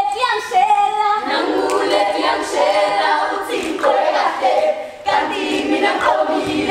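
A group of female voices singing together in chorus, without instruments, with a short break about five seconds in.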